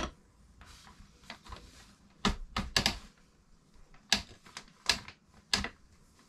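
Aluminium-framed opening hatch being closed onto its new rubber seal: a string of sharp, uneven clicks and knocks from the frame and its lever latches, about eight in all.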